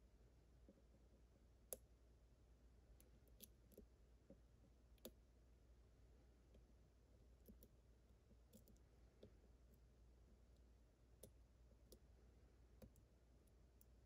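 Faint, irregular clicks of a steel hook pick working the pin stack of a Łucznik E8 lock under a tension wrench, a dozen or so light ticks spread unevenly, the sharpest about two seconds in and again about five seconds in.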